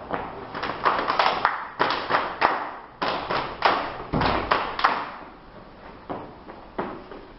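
Body percussion: a group clapping hands and striking their bodies, a quick run of sharp claps and thumps several times a second that thins out to a few scattered strikes over the last couple of seconds.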